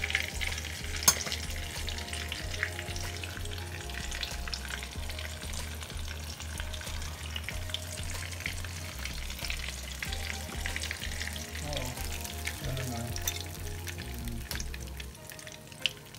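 Eggplant and egg omelette (tortang talong) frying in oil in a pan: a steady sizzle with small crackles and pops. A sharp tap sounds about a second in.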